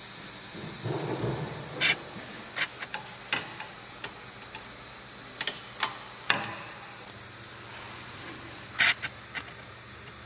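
Irregular clicks and knocks of hand tools and parts being handled during work on a car's front suspension, over a steady faint hiss. The loudest knock comes about six seconds in and rings briefly.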